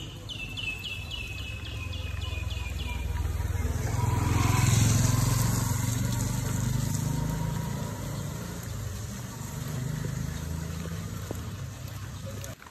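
A motor vehicle passes close by: its engine rumble grows to a peak about five seconds in, then slowly fades away.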